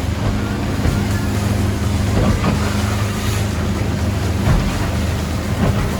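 Motorboat engine running steadily, a constant low drone, with wind and rushing water over it.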